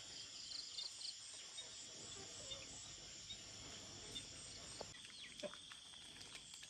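Faint, steady high-pitched chirring of forest insects such as crickets. Part of the chorus stops about three-quarters of the way through while a lower-pitched insect tone goes on, and a short falling call sounds just before.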